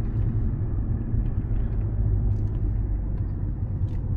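Steady low rumble of road and engine noise heard from inside a moving VW Passat's cabin.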